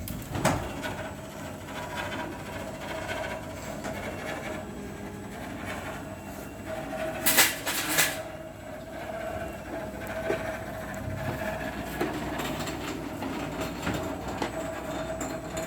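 Steel rolling gate rolling open, its metal slats rattling under a steady hum, with a louder clatter about seven seconds in.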